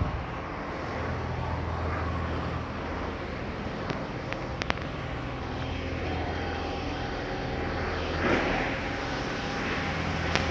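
A steady low mechanical drone, with a faint whine joining about six seconds in and a couple of light clicks near the middle.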